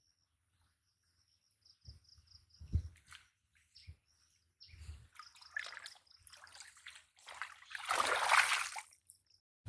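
Water splashing and dripping in short irregular bursts, with the loudest splash about eight seconds in, over a repeated high chirping.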